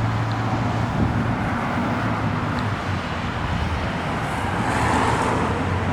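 Motor vehicle noise: a steady low engine hum under a rushing noise that swells about five seconds in, like a car going by.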